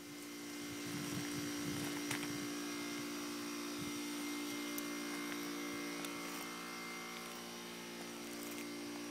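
A steady hum of several held tones, even in level throughout.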